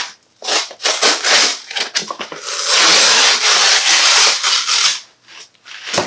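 Brown kraft-paper shipping sleeve being torn open by hand: a run of short rips and crinkles, then one long tear of about two seconds.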